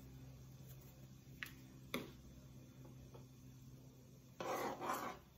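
Quiet kitchen handling sounds over a steady low hum: two light clicks about a second and a half and two seconds in as a small glass spice jar of dried parsley is handled over the pot, then about a second of louder handling noise near the end.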